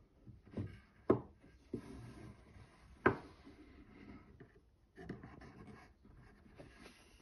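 Faint rustling of paper with a few sharp taps, the loudest about a second and three seconds in: kamishibai picture cards being handled in their wooden stage frame.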